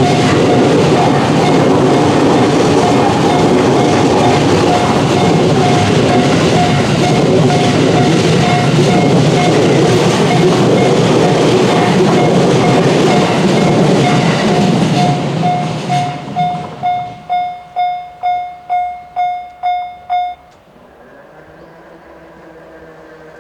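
A train passing over a JR level crossing, loud, with the crossing's JR-standard single-tone electronic warning bell striking in an even repeat over it. The train noise falls away about 15 seconds in, leaving the bell alone at about two to three strikes a second until it stops abruptly about 20 seconds in; a faint hum follows.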